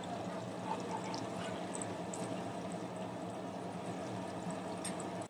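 Batata vadas deep-frying in a large steel kadhai of hot oil: a steady sizzling and bubbling, with a faint low hum underneath.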